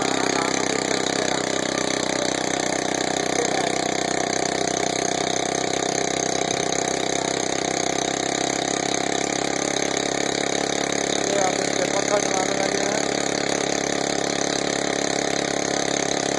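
Small single-cylinder motorcycle engine running steadily at idle on a bench stand, rigged as the power unit for an air compressor.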